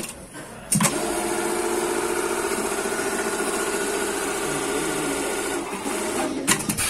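SERA electronic eyelet buttonhole machine sewing an eyelet buttonhole: a click about a second in, then the steady, fast stitching run for about five seconds, which eases off near the end into a few sharp clicks.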